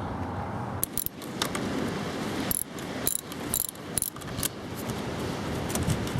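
Metal hand tools clinking under the hood, a string of about seven sharp clicks and taps, over steady wind noise on the microphone.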